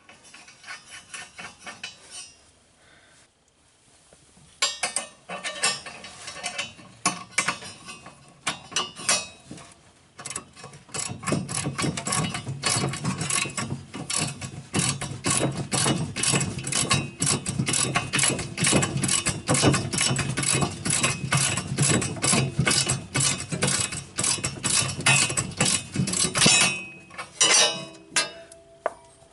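Ratchet wrench clicking as the nut is run down on a replacement snowblower auger shear bolt. There are a few scattered clicks at first, then a long run of quick, even clicks that stops shortly before the end.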